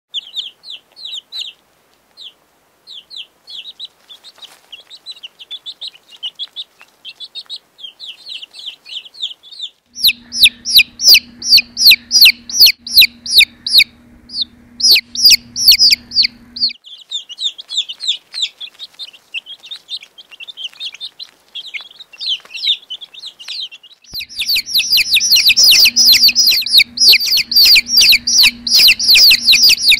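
Baby chicks peeping: a rapid, continuous stream of short, high-pitched peeps. The peeps are quieter at first, grow much louder and denser about ten seconds in, ease off again, and are loud once more near the end. A steady low hum runs under the louder stretches.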